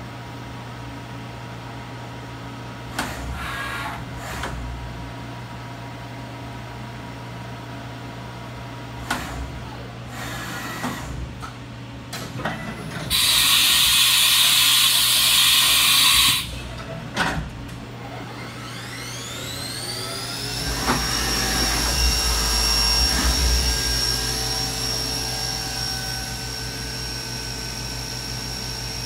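Haas vertical CNC mill doing a tool change: a few clunks from the umbrella tool changer, a loud air hiss of about three seconds as the tool is released from the spindle, then the spindle motor spinning up on its Magnetek GPD 503 drive, a rising whine that levels off and holds steady over a constant electrical hum.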